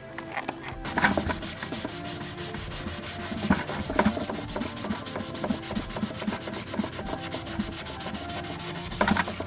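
Scotch-Brite abrasive pad rubbed by hand over a motorcycle fairing panel in rapid, even back-and-forth strokes. The rubbing starts about a second in. It is scuffing the glossy spots dull so the paint has something to grip.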